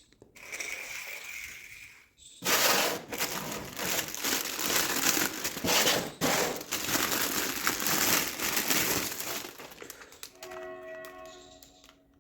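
Plastic packaging crinkling and crackling as a toy is unboxed, loudest in a long stretch through the middle. Near the end, a few steady electronic tones sound.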